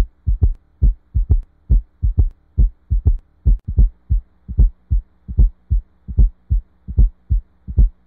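Recorded heart sounds as heard through a stethoscope: low lub-dub thumps repeating evenly at roughly seventy beats a minute, over a faint steady hum.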